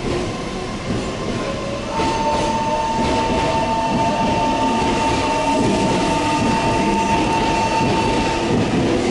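Meitetsu 6500 series electric train running slowly into a station, its wheels rumbling on the rails. About two seconds in, a steady high-pitched squeal starts and holds until shortly before the end.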